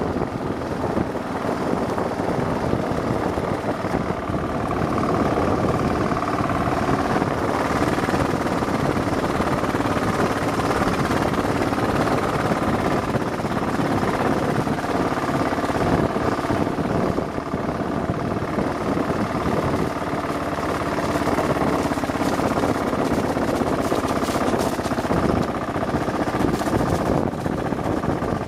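Kawasaki KLR's single-cylinder four-stroke engine running steadily at low speed, heard from the pillion seat, its pitch holding nearly level.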